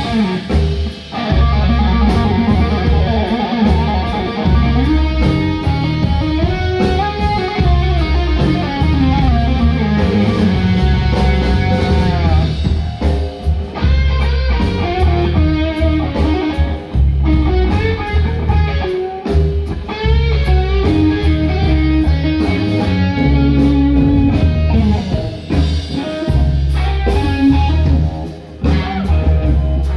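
Live rock trio playing a slow blues: an electric guitar lead with long bends and slides over bass guitar and drums, loud through a stage PA.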